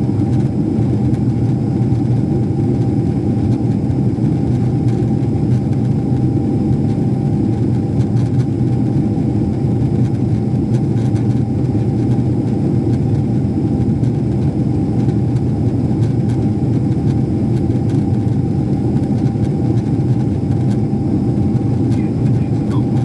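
Airliner cabin noise while climbing after takeoff: the steady drone of the jet engines and rushing air, with a thin steady tone running through it.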